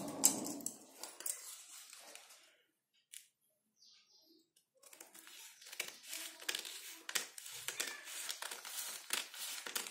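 Scissors cutting a curved line through folded newspaper: a quick, irregular run of snips begins about five seconds in, after paper being handled and a short pause.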